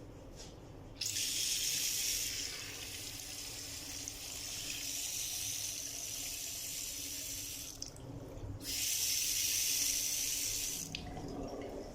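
Water running from a tap into a wash basin: it comes on about a second in and runs steadily for several seconds, stops briefly, then runs again for about two seconds before being shut off.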